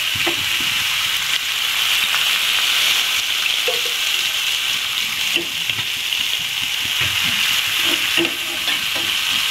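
Large whole prawns sizzling in oil on a hot grill pan, a steady hiss.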